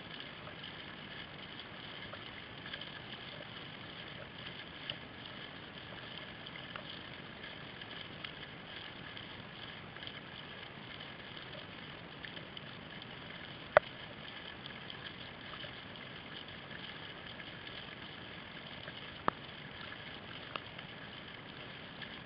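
Steady water and wind noise from a whitewater kayak being paddled over choppy water, with two sharp knocks, one about two-thirds of the way through and one near the end.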